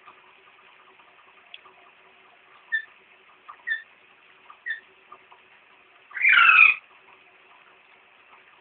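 Pet parakeet calling: three short chirps about a second apart, then one loud, harsh squawk about six seconds in, over a faint steady hiss.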